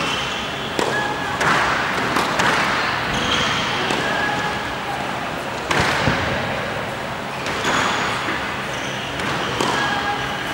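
Tennis ball struck by a racket and bouncing on a hard court: a few sharp hits, the loudest pair about six seconds in, with short squeaks of tennis shoes on the court surface between them.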